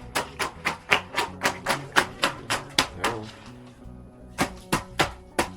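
Rapid, evenly spaced blows of a hand tool striking, about four a second. They pause for about a second after three seconds, then start again.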